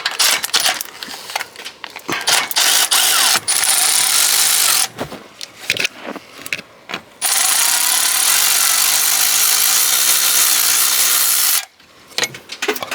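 A handheld power tool runs in two bursts, a short one and then a longer one of about four seconds, as the water pump bolts are backed out. Short metallic clicks and knocks come between the bursts.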